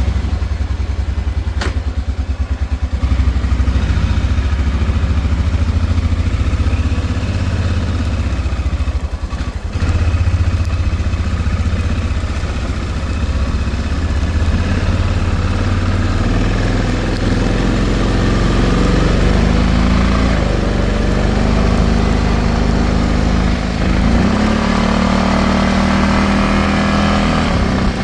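Honda Rincon 650 ATV's single-cylinder four-stroke engine running under way on a test ride, its pitch rising and falling as the throttle changes, most clearly near the end.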